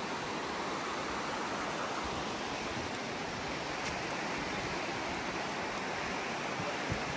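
Steady rushing of the Virgin River flowing fast over rocks, an even unbroken wash of water noise.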